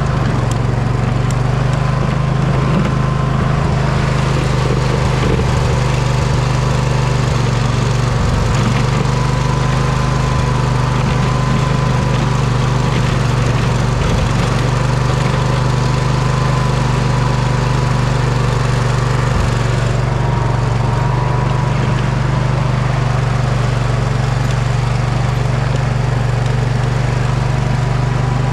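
Poulan riding mower's engine running steadily as the machine plows snow, with a thin high whine held above the engine note.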